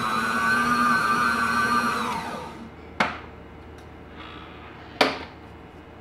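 Electric stand mixer running with its dough hook kneading soft bread dough, a steady motor whine that is switched off about two seconds in and winds down. Two sharp clicks follow, about two seconds apart.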